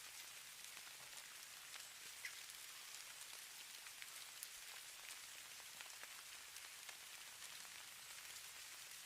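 Falling snow pattering faintly on a surface: a steady soft hiss dotted with many fine ticks.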